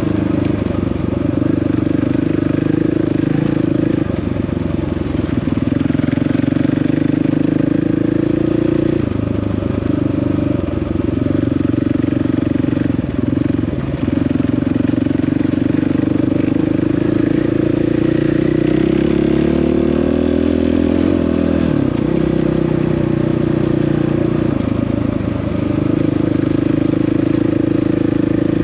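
Dirt bike engine running under way, the revs falling off briefly several times as the throttle closes and picking up again, with the pitch sliding up and back down about twenty seconds in.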